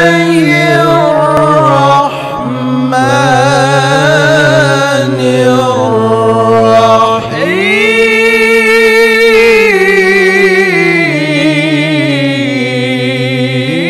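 A qoriah (female Quran reciter) chanting Quranic verses in the melodic tilawah style, the voice wavering through ornamented phrases. About seven seconds in it sweeps sharply up to a long held higher note, then descends.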